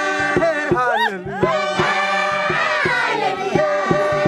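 Maasai choir singing together, many voices including children's holding and sliding between notes over a steady low beat about three times a second.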